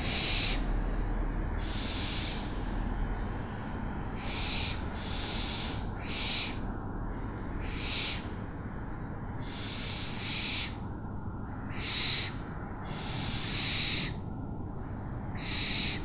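An owl giving harsh, hissing screeches, about a dozen short rasping calls of roughly half a second each, coming at irregular intervals, with no tonal hoots.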